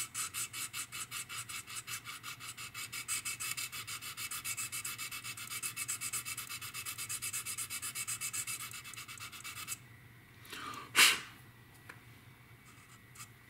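Quick back-and-forth rubbing of a wooden sanding stick on the styrene plastic seam of a model aircraft fuselage, about five strokes a second, stopping a few seconds before the end. About a second after the rubbing stops, one brief loud burst of sound.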